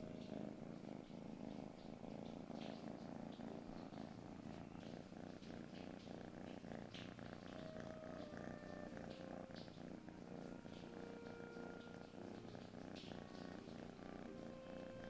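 Kitten purring steadily, a continuous low rumble with a fast fluttering pulse.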